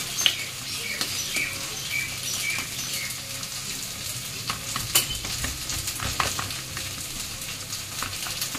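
A steel spatula scrapes and taps on a steel plate as soft lentil paste is smoothed flat, over a steady crackling hiss. Sharp taps come just after the start and about five seconds in.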